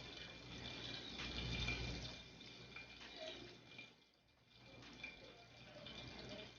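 Faint, steady sizzle of butter and oil heating in a pot for frying, with a slightly fuller patch around one to two seconds in.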